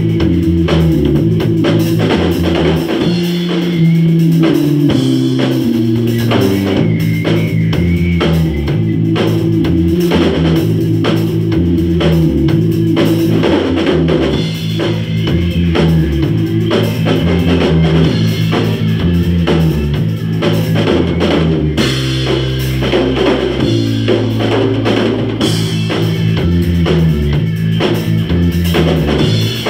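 A rock band playing loud and without a break: a drum kit with cymbals over a moving bass line and guitar.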